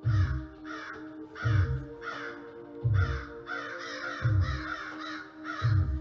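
Crows cawing in a quick run of about ten caws, over background music with a steady drone and a low drum beat about every second and a half.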